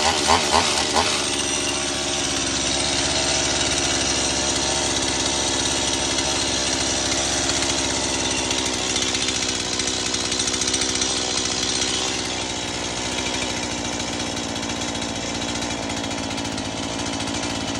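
Stihl MS170 two-stroke chainsaw with an aftermarket Amazon replacement engine, running after its cold start. A few quick revs come in the first second, then it runs steadily. It drops a little lower about twelve seconds in.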